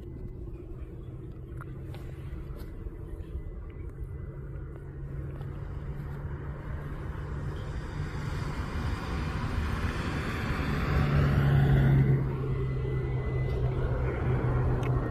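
Jet airliner on approach, its engine rumble and rushing whine growing steadily louder as it nears, loudest about three-quarters of the way through.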